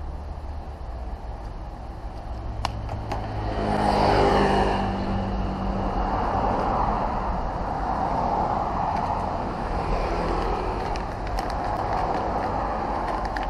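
A motor vehicle: an engine note swells and peaks about four seconds in, then gives way to steady road-like noise.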